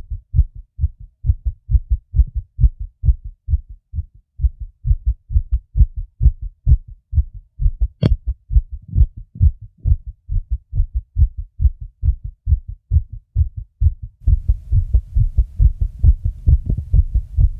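Fast human heartbeat: short low thumps repeating quickly and evenly. A single sharp click comes about eight seconds in. A low rumble joins under the beats for the last few seconds.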